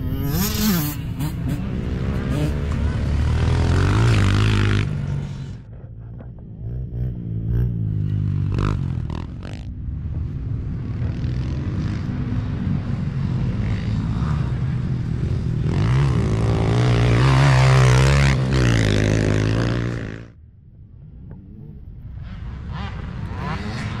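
Youth dirt bikes racing past on a motocross track, their engines revving up and down through the gears. Several loud passes come and go, and the engine sound drops off sharply about twenty seconds in before another bike builds up again.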